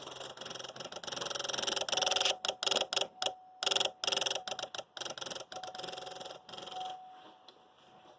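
Rapid electrical buzzing or chattering from the C6 Corvette's electrics, typical of a relay clicking very fast. It breaks off and restarts several times in the middle and fades out near the end. The car will not crank.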